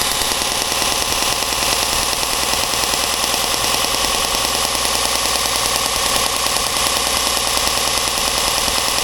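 Wen 6502T belt and disc sander running steadily, a constant motor hum and belt whir with a fast, even flutter.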